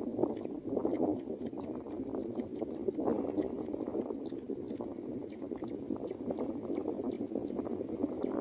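Strong wind rushing over the microphone in uneven gusts, a rough, fluttering noise that swells and drops.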